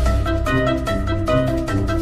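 Background music with a steady bass and quick, short melody notes.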